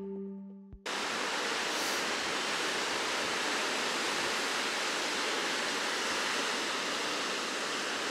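The last notes of music fade out, then about a second in the steady, even rush of ocean surf starts suddenly and holds.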